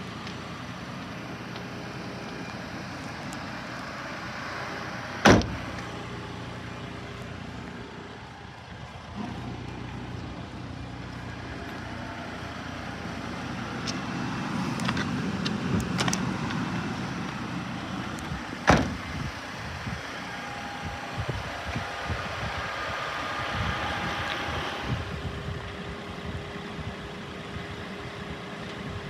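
Nissan Dayz Roox's 660 cc three-cylinder engine idling steadily, with two sharp knocks, about five seconds in and again past the middle, and a few lighter clicks between them.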